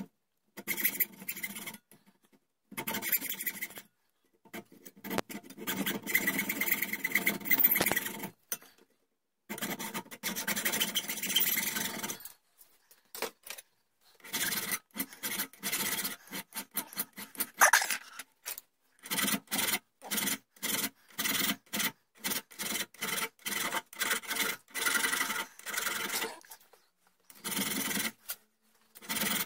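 Hacksaw cutting a piece of scrap brass clamped in a vise, in stretches of a few seconds for the first twelve seconds or so, then a hand file rasping across the brass in short, regular strokes with brief pauses between them.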